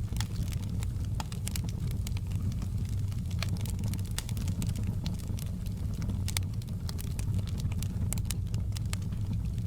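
Wood fire crackling in a fireplace: a steady low rumble of burning with irregular sharp pops and snaps.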